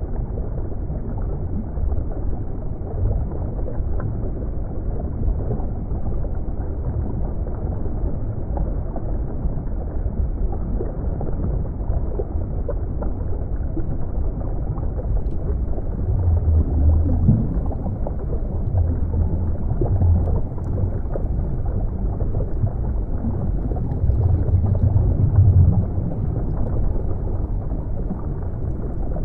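Underwater ambience: a continuous muffled, low rumble of moving water, swelling louder a few times, with a brief rising sweep partway through.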